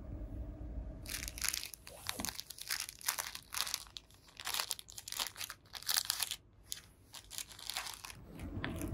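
Clear plastic packaging crinkling as it is handled, in irregular bursts that start about a second in and stop shortly before the end.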